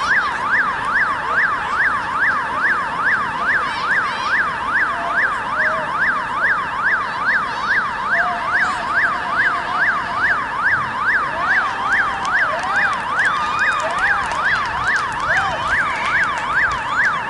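Electronic siren in a fast yelp, its pitch sweeping up and down about three times a second at a steady loudness, cutting off suddenly at the end.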